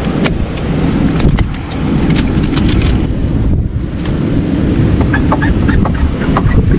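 Strong wind buffeting the microphone, a loud, steady low rumble, with a few small clicks and knocks mixed in.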